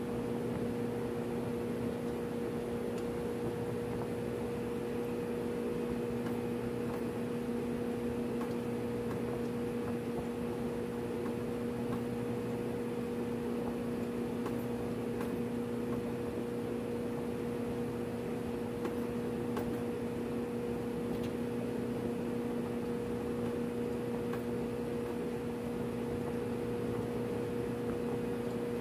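Steady machinery hum aboard ship: a constant low drone with a second, higher tone an octave above it over a rushing background. A few faint clicks come from hand tools working the flange bolts.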